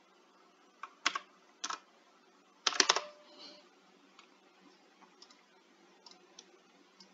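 Computer keyboard keystrokes: a few separate clicks in the first two seconds, a quick run of several strokes about three seconds in, then only faint scattered ticks.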